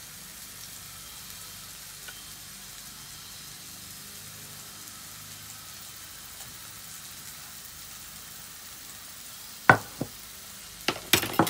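Mushrooms sizzling steadily in a hot skillet, with a few sharp metallic clicks near the end as a utensil knocks against the pan.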